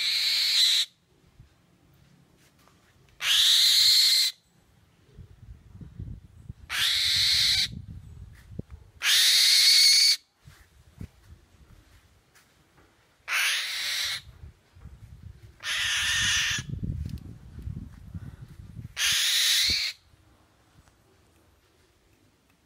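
Young black-winged kite giving seven harsh, screechy calls, each about a second long, every two to four seconds.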